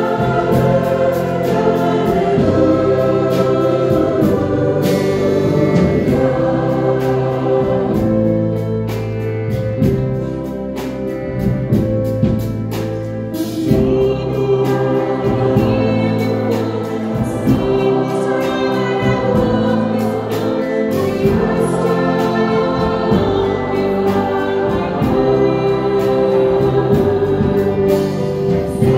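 Large mixed-voice choir singing, with a woman soloist singing lead at a microphone in front of them. The choir softens briefly around the middle, then swells again.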